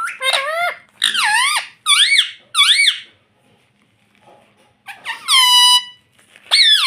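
Pet parrot giving a series of high-pitched, warbling calls: four quick ones in the first three seconds, then a longer call that falls in pitch about five seconds in, and a short one near the end.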